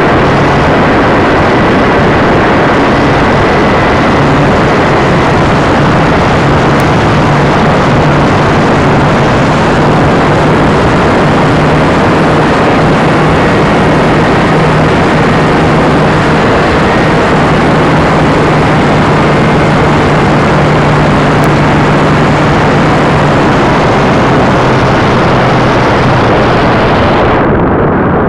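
Electric motor and folding propeller of an RC powered glider running under power, heard through the onboard camera's microphone as a steady low hum buried in loud wind rush. Near the end the motor is cut, the propeller folds, and the high hiss drops away suddenly.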